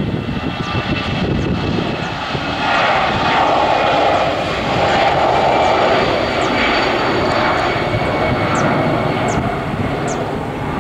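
Airbus A319's twin CFM56 turbofan engines at take-off thrust as the jet accelerates down the runway. It is a loud, steady jet roar that swells about two and a half seconds in, then eases slightly near the end.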